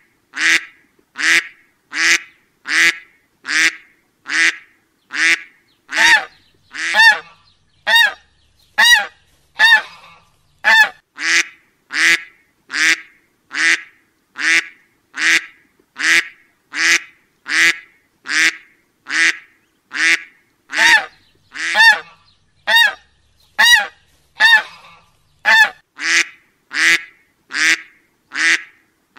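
Duck quacks repeated at an even, looped pace, just over one a second. Some of the quacks in the middle have a clearer, arching pitch.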